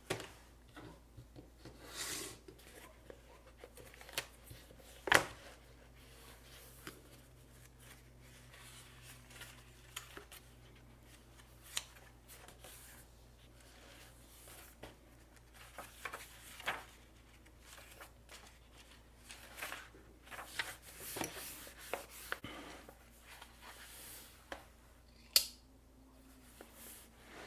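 Bastion bolt action pen's roller-ball tip writing on paper: faint, irregular scratching strokes broken by a few sharp clicks, one about five seconds in and one near the end.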